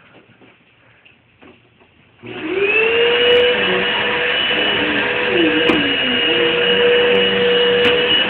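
Vacuum cleaner switched on about two seconds in, its motor spinning up and then running with a steady whine, after a few faint knocks.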